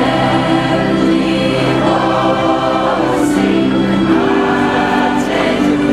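A mixed choir of men's and women's voices singing together in long held notes that change in steps.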